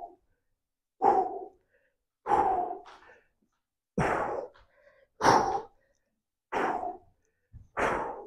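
A man breathing out hard in time with bent-over dumbbell rows: six forceful, breathy exhalations, one every second and a bit, from exertion as he works through the set.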